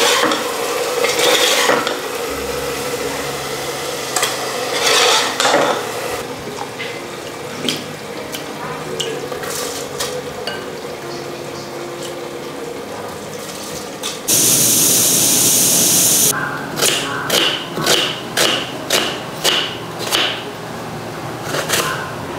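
A long metal ladle scraping and stirring inside an aluminium pressure cooker. About two-thirds of the way through, liquid is poured into the pot with a steady hiss for about two seconds. Near the end a knife chops onion on a wooden board in sharp strokes, about two a second.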